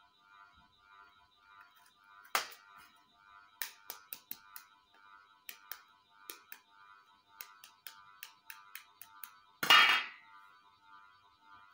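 Raw eggs being tapped and cracked open by hand: one sharp crack about two seconds in, a run of light taps, and the loudest crack near the end. Quiet background music runs underneath.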